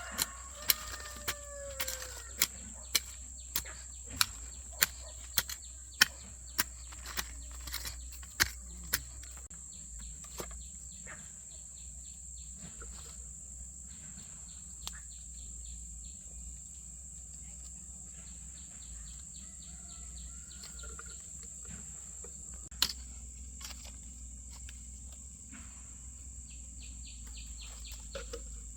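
About fifteen sharp, evenly spaced knocks, roughly one every 0.6 seconds, stopping about nine seconds in, with one more knock later. A steady high insect drone, such as crickets, runs underneath.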